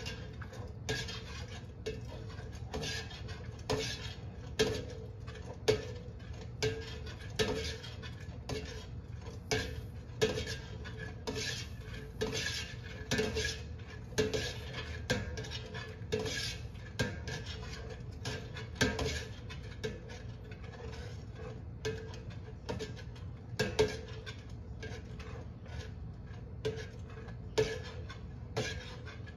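A long-handled metal spoon stirring soy milk in a stainless steel stockpot as it comes up to the boil. The spoon scrapes and knocks against the pot about once a second, and each knock rings briefly.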